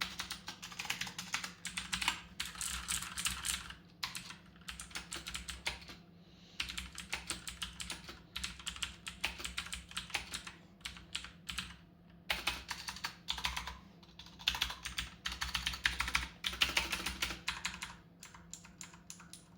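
Fast typing on a budget Action Battletron mechanical keyboard: runs of key presses broken by short pauses, thinning out near the end. The switches clatter and rattle.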